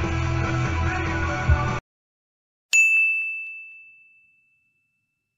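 Background music with a steady beat cuts off abruptly, and after a short silence a single bright ding sound effect rings out once, fading away over about a second and a half.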